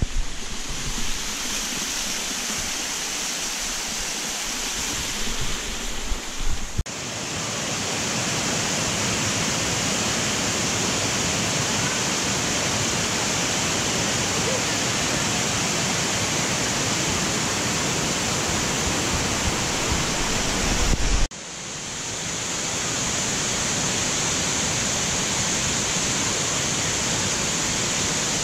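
Steady rush of water pouring down a tiered cascade waterfall. It cuts in abruptly about seven seconds in, and again after a brief drop about three-quarters of the way through. Before the first cut there is a rougher, uneven rushing noise with a few bumps.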